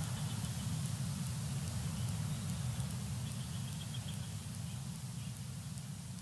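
Steady low wind rumble on an outdoor nest-camera microphone, with faint high bird chirps a few times. It fades down near the end.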